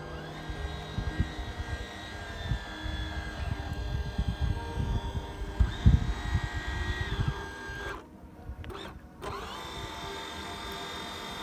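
Small remote-controlled bait boat's electric motors whining, the pitch rising and falling several times as the throttle changes, with low thumps of wind on the microphone.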